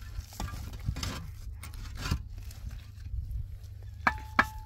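Concrete blocks handled and set onto a block wall: scattered scrapes and knocks of block on block over a low steady rumble. Near the end come two sharp knocks close together, followed by a brief ringing note.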